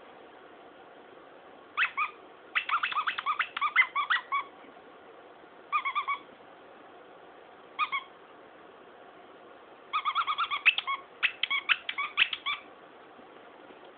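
Squeaker in a plush raccoon dog toy squeaking as a puppy chews and tugs it, in quick runs of several same-pitched squeaks a second with short pauses between runs.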